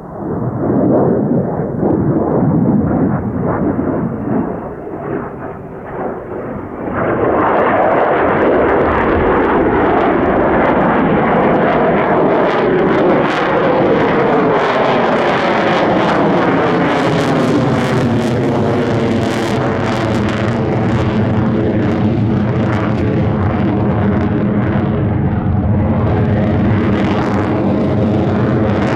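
F-35A fighter's Pratt & Whitney F135 jet engine running loud in flight. It grows louder and fuller about seven seconds in and stays loud, with a tone sweeping downward in pitch through the middle.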